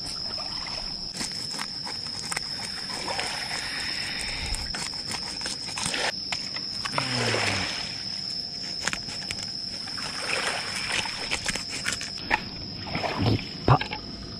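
Crickets or similar insects chirring, a steady high tone, over water lapping and sloshing with small splashes.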